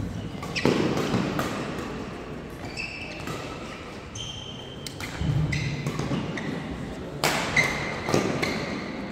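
Badminton doubles rally: rackets hitting the shuttlecock in sharp cracks at irregular intervals, several in quick succession near the end. Shoes squeak briefly on the court mat, a foot thuds down about five seconds in, and it all echoes in a large hall.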